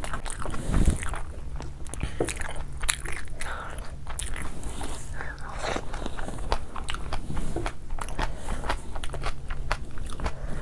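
A person chewing food close to the microphone: wet lip smacks and many irregular mouth clicks and crunches.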